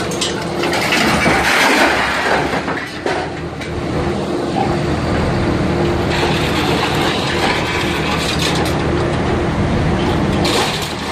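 RR-550/6 rotor shear baler working scrap metal: a steady hydraulic hum under continuous scraping, creaking and crunching of metal.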